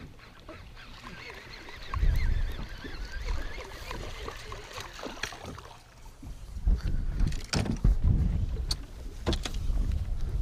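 Wind rumbling on the microphone over a fishing boat on choppy water, swelling about two seconds in and again past the middle. In the second half come several sharp knocks from gear being handled on the boat's deck.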